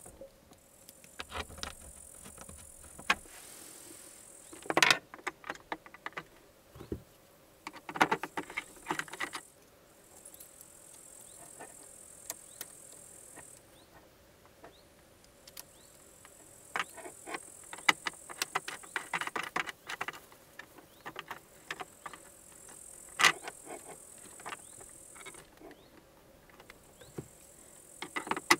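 Scattered clicks, knocks and light rattles of cables and connectors being handled as a LiFePO4 battery is wired to a DC-DC charger, with louder knocks about 5, 8 and 23 seconds in. A faint high hiss comes and goes underneath.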